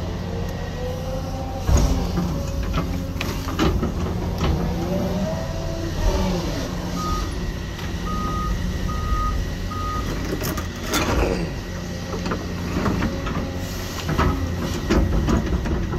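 Hyundai HX220AL excavator's diesel engine running steadily under load, with hydraulic whines rising and falling as the bucket teeth dig out a trench, and a knock about two seconds in and a scraping crash near the eleven-second mark from the bucket. A backup alarm beeps four times in the middle.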